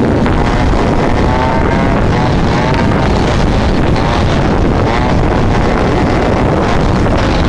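Small 50cc two-stroke engine running under way, its buzzing pitch rising and falling as the revs change, with heavy wind rush on the microphone from riding.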